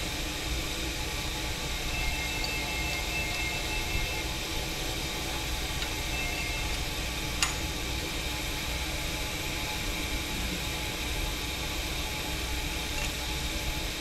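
DeVlieg Micropoint tool grinder running steadily under power, a constant motor hum with a few steady tones over it. A single sharp click about seven and a half seconds in.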